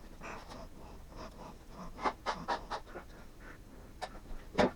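Plastic spreader scraping and smearing two-part body filler with its hardener: a series of short strokes, then one louder stroke near the end.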